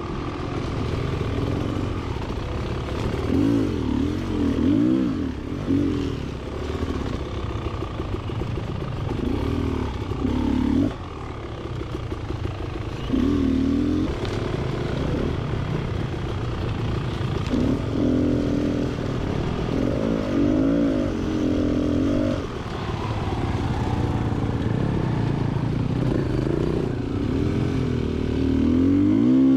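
Two-stroke 300 cc enduro bike engine, a Beta XTrainer 300, ridden on trail with the throttle opened and closed in short revs every few seconds, the engine note rising and falling each time, the strongest rev near the end.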